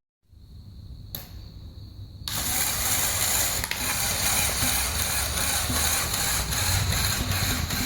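Lego Technic Mercedes-Benz Arocs model's motor-driven plastic gear train running, a loud steady mechanical whirr with a fast, even rattle of clicks. It starts about two seconds in.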